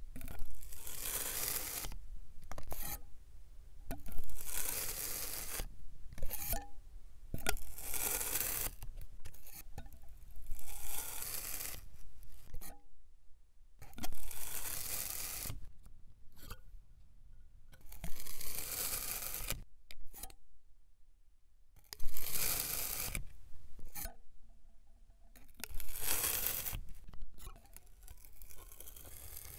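A thin metal blade slicing again and again through packed kinetic sand, each cut a short gritty crunching scrape, one every second or two with a longer pause about two-thirds of the way through.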